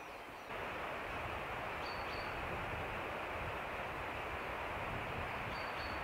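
Steady rushing outdoor noise that comes in suddenly about half a second in, with two brief high chirps, one about two seconds in and one near the end.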